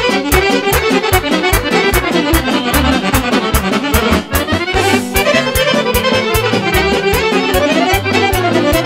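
Band playing an instrumental passage of a Serbian wedding song, the melody led by accordion over a steady, fast drum beat.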